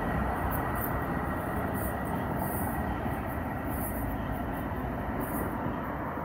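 Alstom Citadis light rail train running away along the track toward a tunnel: a steady rolling noise with a thin high whine held over it.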